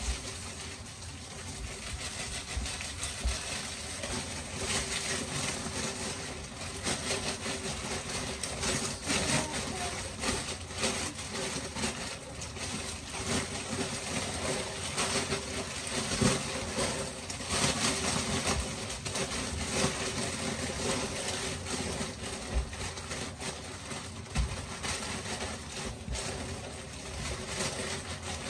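Kitchen tap running into a stainless steel sink while bagged salad greens are rinsed, with the plastic packaging crinkling and rustling in the hands throughout.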